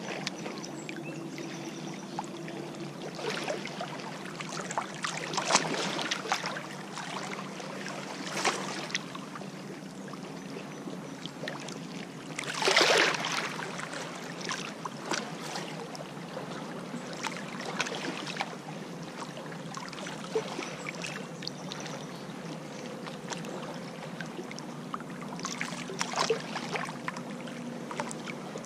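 Small lake waves lapping and splashing against a rocky shoreline, in irregular slaps with a louder splash about thirteen seconds in.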